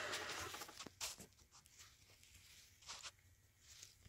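Near silence, with a few faint, short clicks and brushing sounds: one about a second in and another near three seconds in.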